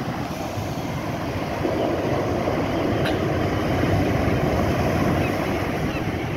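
Storm surf: rough waves breaking and washing up the beach at high tide, a steady rushing that swells about a second and a half in.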